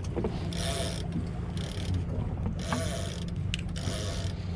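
Suzuki 350 outboard motor running at trolling speed with a steady low drone, while water washes against the boat's hull in hissing surges about once a second.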